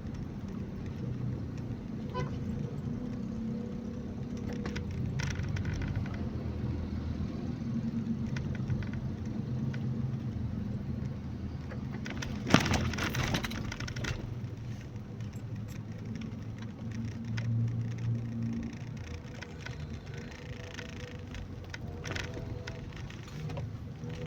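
Car driving, a steady low engine and road rumble, with one sharp knock about halfway through.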